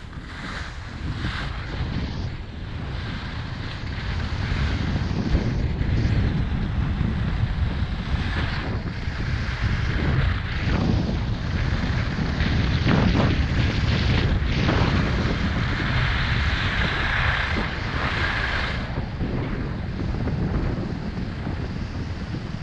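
Wind buffeting a GoPro's microphone during a fast downhill run on a ski slope, a steady rushing roar, with the hiss and scrape of edges sliding over packed, groomed snow. It builds a few seconds in as speed picks up.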